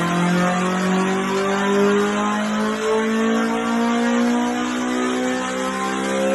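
Honda K24A2 2.4-litre inline-four in a Civic pulling on a dyno, its engine note climbing steadily in pitch as the revs build under load.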